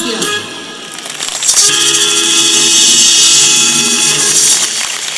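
Closing bars of a cha-cha-cha. The band holds its final chord while maracas are shaken in a fast, continuous roll, which cuts off about four and a half seconds in. Audience applause follows.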